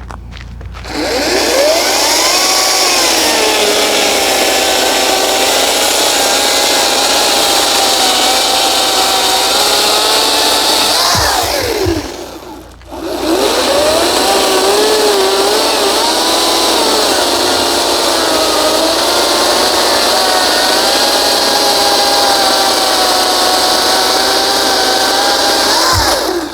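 Ryobi 40V cordless chainsaw's electric motor whining as it cuts through a log about 6 inches across, its pitch dipping and wavering under load. It winds down and stops for about a second midway, then spins up again and cuts on until it stops near the end. The saw cuts well, much better than in the earlier overheating test.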